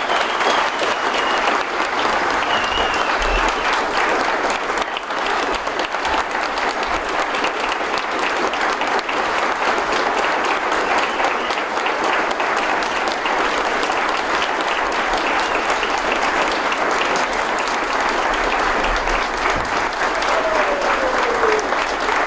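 Large audience applauding steadily, sustained clapping with a few whistles, greeting a newly sworn-in president.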